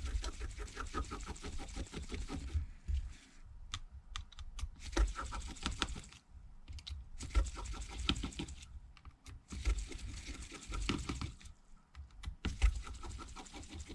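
Irregular clusters of small sharp clicks and taps from a small screwdriver backing out the tiny screws inside a Samsung Galaxy S8 and setting them down.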